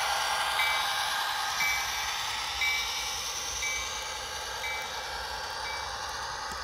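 N scale model freight train running past on the layout track: a steady whir and rattle of the small motor and wheels that slowly fades. A short high beep repeats about once a second throughout.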